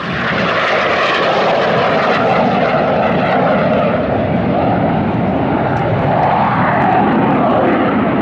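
Jet engine noise from Red Arrows BAE Hawk T1 jets passing overhead in display flight. It gets louder just at the start and then holds steady, with a wavering whine within the noise.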